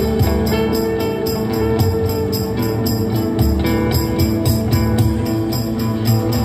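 Live ambient acoustic instrumental music by a small band: held low notes under a steady, fast, high percussion beat.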